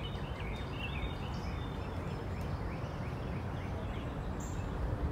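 A bird calling in a quick series of short, repeated chirps, about three or four a second, over a steady low rumble of outdoor background noise.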